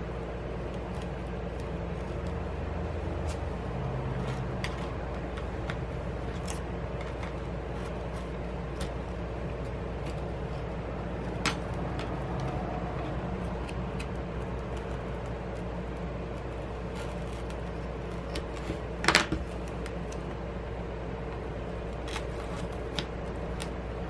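Plastic opening picks and a thin pry card being worked into the edge of an iPad Pro's glued display assembly: scattered light clicks and taps, with one louder short scrape late on, over a steady low hum.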